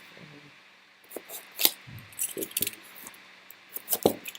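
Scattered clicks and knocks of a retractable utility knife and a cardboard box being handled, the knife's blade not staying locked out.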